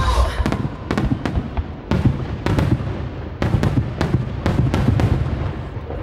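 Aerial firework shells bursting: about a dozen sharp bangs, unevenly spaced, with low rumbling echo between them, thinning out near the end.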